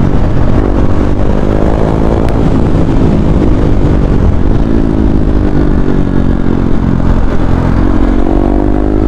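KTM Duke 390's single-cylinder engine running while the bike is ridden, its note rising and falling gently with the throttle over a steady low rumble.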